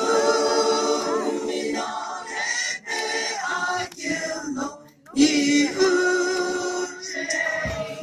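A mixed choir of men and women singing a hymn, in phrases with short breaks about three seconds and five seconds in.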